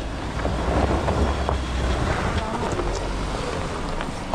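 Mahindra Thar's engine running at low speed as the 4x4 crawls over a rutted dirt trail, with a steady low rumble.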